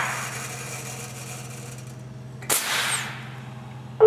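Tippmann clicker die-cutting press working through a cut with a forged steel die: a sudden burst of air hiss fading over about half a second, then a second burst about two and a half seconds in, over a steady low machine hum.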